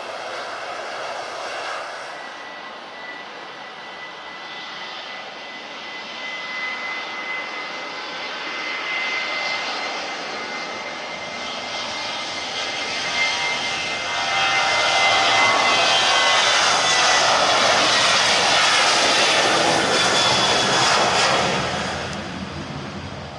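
Jet airliner's engines passing close: a steady high whine over a rushing roar that builds through the first half, stays loud for about eight seconds, then falls away near the end.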